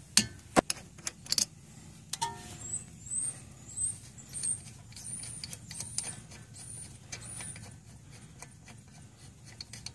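Ratchet wrench with a 14 mm socket loosening a brake caliper bolt: sharp metallic clicks and clinks in the first second and a half. These are followed by a series of short high squeaks, repeating about every half to three-quarters of a second.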